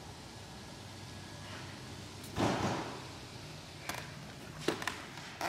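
A single noisy thump lasting about half a second, about two seconds in, over a steady hiss, followed by a few sharp clicks.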